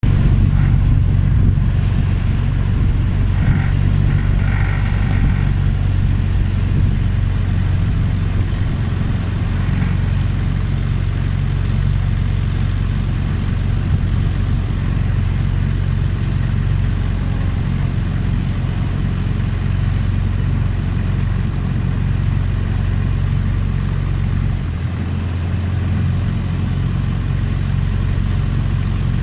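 Longtail boat engine running steadily under way, a loud, even low drone with no change in pace.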